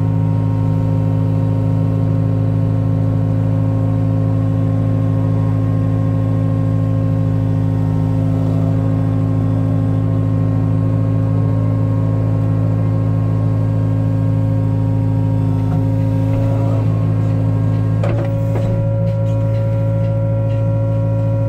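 Diesel engine of a truck-mounted crane running at a steady, constant speed while the crane holds and swings a suspended load. There is one brief knock about 18 seconds in.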